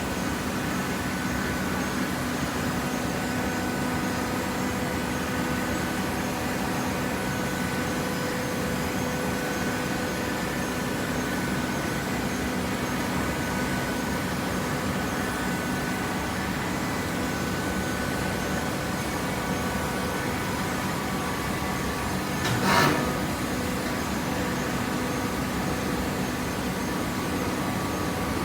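Hydraulic baling press's motor and pump running with a steady hum, broken by a single sharp knock about 23 seconds in.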